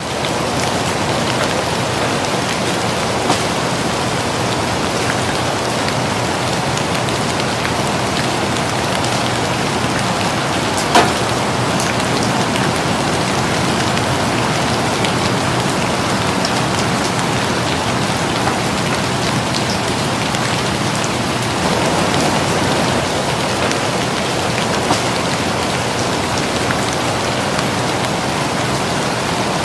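Steady heavy rain, an even hiss with scattered sharper drop taps; one louder tap about 11 seconds in.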